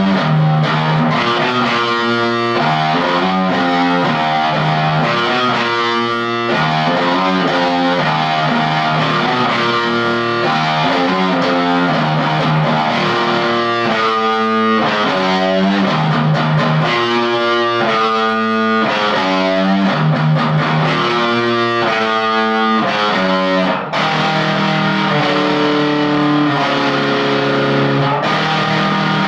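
Electric guitar, a Gibson Les Paul Studio, played through a Marshall Jackhammer JH-1 overdrive/distortion pedal into a Marshall MG15CD amp, playing heavily distorted rock riffs and single-note lines, with a brief break about three-quarters of the way through.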